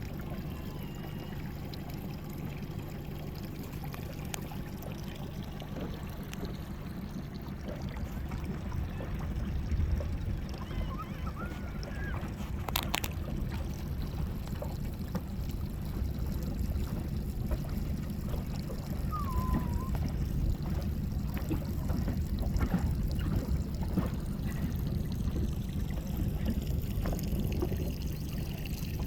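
Calm sea water lapping and trickling, over a steady low rumble. A single sharp click comes about halfway through.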